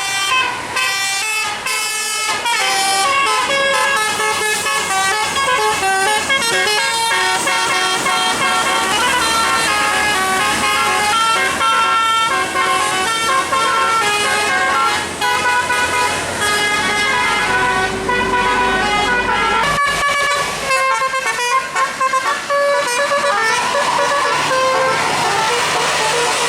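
Indonesian 'telolet' bus horn, a multi-trumpet musical air horn, playing a fast melody of stepped notes with several tones sounding together, briefly broken off about twenty seconds in.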